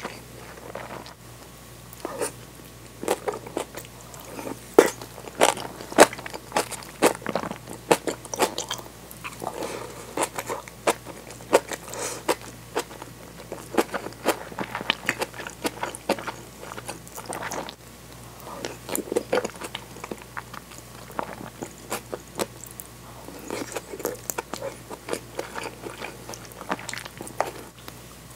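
Close-miked chewing of kimchi-topped tofu: irregular crisp crunches and wet mouth clicks coming in clusters, with short lulls between mouthfuls.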